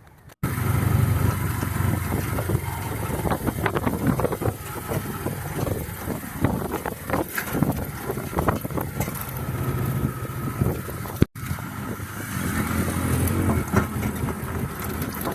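Motorcycle engine running steadily under road and wind noise, as heard on a ride. The sound cuts out for an instant about eleven seconds in, then carries on.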